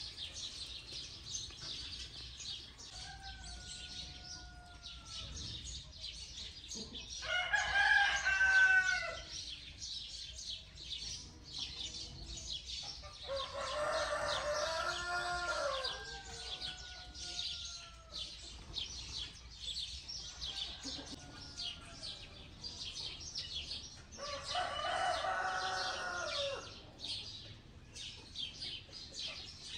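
A rooster crowing three times, each crow two to three seconds long, with fainter crowing in between. A steady high chirping of small birds runs underneath.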